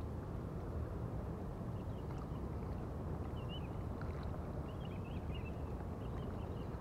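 Steady low rumble of wind on the microphone over open water, with scattered faint high chirps now and then.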